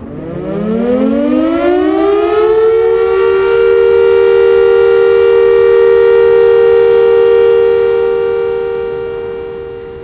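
Siren winding up in pitch over a few seconds, then holding a steady, loud wail of two close tones before fading away near the end.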